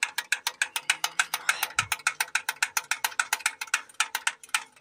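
Rapid, even ratchet clicking, about eight clicks a second, as a ratchet spanner is worked on a tight bleed screw of a tractor's diesel fuel filter while air is bled from the fuel system.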